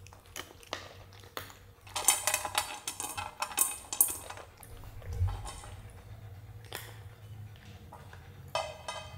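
A cat eating from a stainless steel bowl: chewing clicks, with food and teeth knocking on the metal so that it rings. There is a dense run of ringing clinks about two seconds in and another short one near the end.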